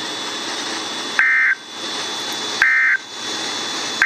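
NOAA Weather Radio EAS end-of-message signal: two short identical bursts of buzzy two-tone digital data, about a second and a half apart, with a third starting at the very end, over steady radio hiss. These SAME data bursts mark the end of the tornado watch message.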